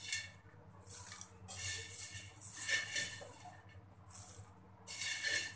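Popped popcorn scooped with a plastic slotted spoon and poured onto a plate: a dry rustling clatter of popcorn and utensil against the dishes, in several bursts.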